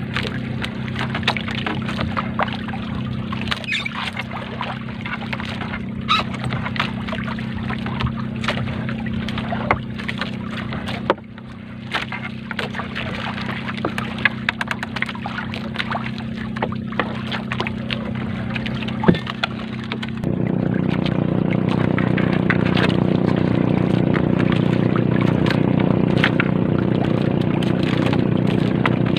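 A small boat's engine running steadily, with water splashing and dripping as a wet gill net is hauled in by hand over the side. About twenty seconds in the engine note changes and grows louder.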